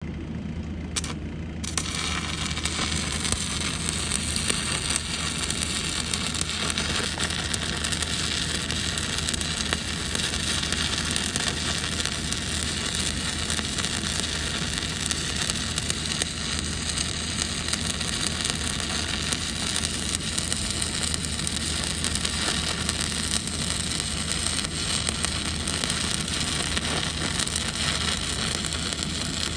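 Stick (shielded metal arc) welding on a steel cylinder: the arc strikes about two seconds in and then runs with a continuous crackle and sizzle, over a steady low hum.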